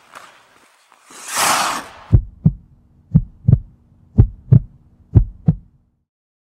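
Logo intro sound effect: a whoosh, then four heartbeat-style double thumps about a second apart over a low hum.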